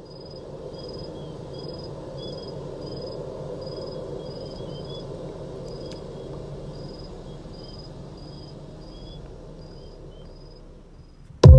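Outdoor nature ambience: a steady hiss with short high chirps repeating evenly, about one and a half a second, and a lower chirp now and then.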